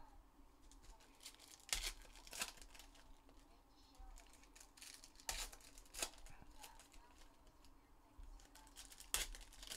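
Foil trading-card pack wrappers torn open and crinkled by hand, with short sharp rips coming in loose pairs every few seconds and quiet handling of cards between them.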